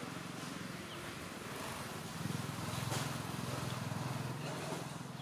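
An engine running steadily in the background, its low hum growing louder about two seconds in.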